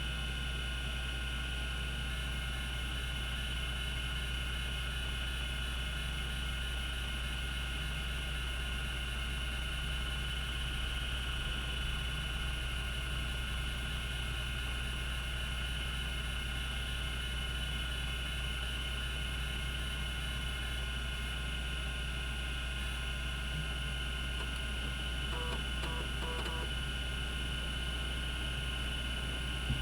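Cogito Systems CG-912 10 MB MFM hard drive spinning its two platters at 3600 RPM: a steady hum with several constant high-pitched tones over it, and a few faint ticks near the end.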